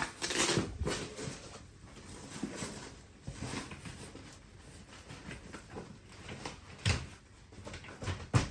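A fabric pushchair seat cover rustling as it is handled and fitted onto the stroller frame, with light clicks and knocks from the frame and a sharper knock about seven seconds in.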